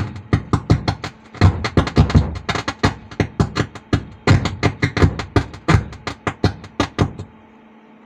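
Faulty Stranger PBT701 PA amplifier with its volume turned up, putting out loud irregular crackling pops, a 'phat phat' sound, about five or six a second, instead of any programme sound. The pops stop about seven seconds in.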